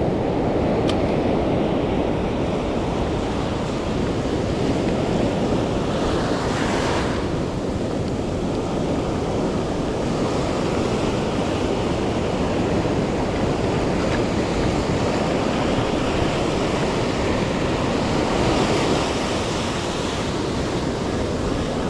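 Ocean surf washing onto a beach, a steady rush with wind buffeting the microphone; a wave breaks more loudly about six seconds in and another swells near the end.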